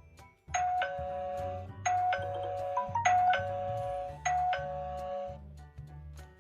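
Electronic wireless doorbell chime ringing a two-note descending ding-dong four times, about 1.2 seconds apart, over background music with a steady bass beat.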